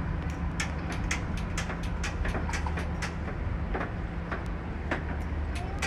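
Steady low mechanical hum, engine-like, with irregular sharp clicks and ticks over it, several a second.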